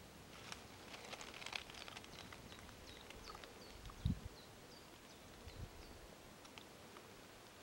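Faint rustling and scattered sharp knocks from two roe bucks fighting in the undergrowth, butting each other and scraping their hooves. A run of short high bird chirps comes in the middle, and there is a dull thump about four seconds in.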